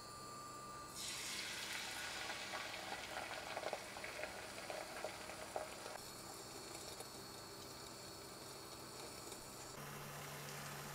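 Beaten egg hitting a hot buttered frying pan and sizzling, starting suddenly about a second in with crackles, then settling to a lower, steady sizzle after a few seconds.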